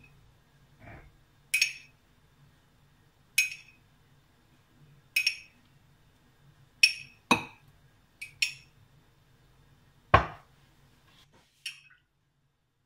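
Metal teaspoon clinking against a glass jug while stirring instant coffee: single ringing clinks about every two seconds, with two heavier knocks in the second half.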